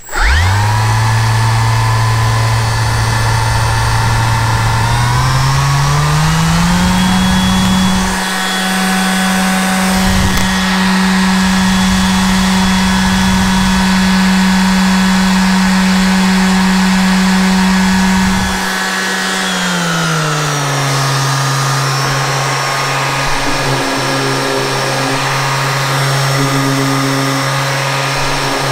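Milwaukee M18 2648-20 cordless random orbital sander switched on and running with no load: a steady motor hum and whine. About five seconds in its pitch climbs to a higher speed and holds, then drops back to a lower speed around nineteen seconds in.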